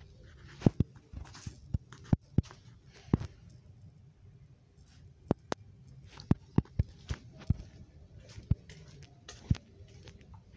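Scattered sharp clicks and knocks at irregular intervals, sometimes several a second, over a faint background hum.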